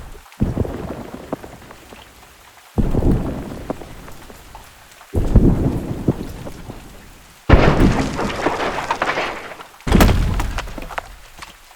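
Five separate crash impacts with crackling, rumbling debris, each hitting suddenly and fading out over about two seconds, one roughly every two and a half seconds.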